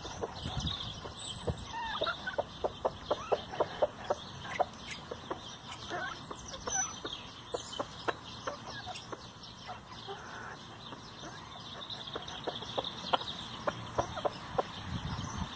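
A flock of chickens clucking softly while they peck at a heap of cut grass, in quick runs of short clucks.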